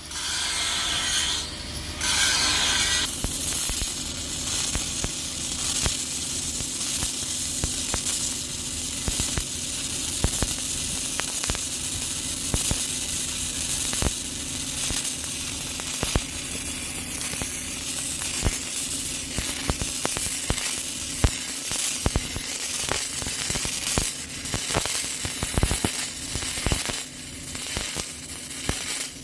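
Stick welding with a cellulose 6010/8010 electrode on a pipe root pass: the arc crackles and sputters steadily with sharp pops, over a steady low hum.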